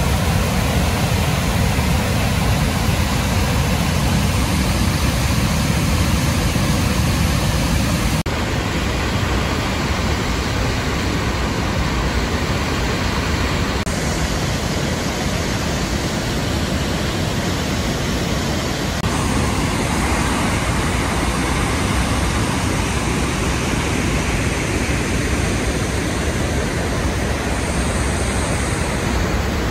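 Gooseberry Falls and the Gooseberry River's rapids, swollen with spring runoff, rushing loud and steady over the rock ledges. The rush shifts suddenly in tone about 8, 14 and 19 seconds in.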